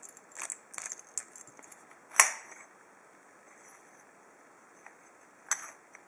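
Metal clicks and light rattling from a large steel padlock being handled with its key in the cylinder. One sharp click comes about two seconds in, and another near the end.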